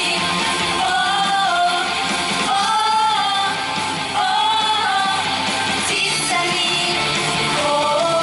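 A song: a sung melody of held, gliding notes over an instrumental backing.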